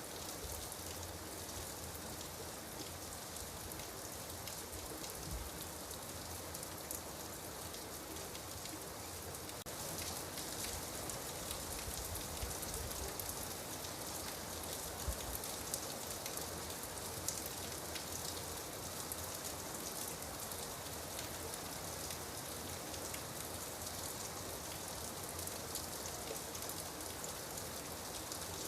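Steady rain falling on a surface, a dense hiss of drops with fine individual drop ticks, growing a little heavier about ten seconds in.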